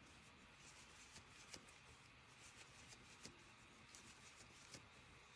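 Near silence with faint handling sounds of crocheting: acrylic yarn rustling as it is pulled through, and a few soft ticks of the crochet hook as double crochets are worked.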